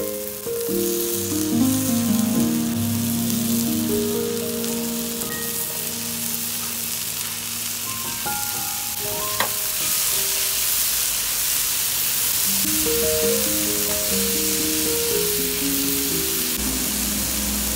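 Food sizzling and frying in hot oil in a pan, the sizzle growing louder about halfway through, with a single sharp click in the middle. Background music plays over it.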